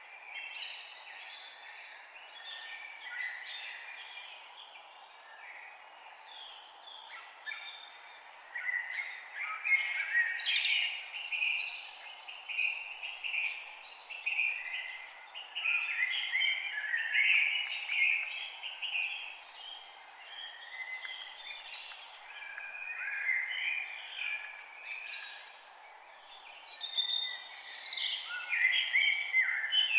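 Several birds chirping and singing in overlapping bursts of quick, varied calls, louder after the first few seconds and again near the end, over a steady faint background noise.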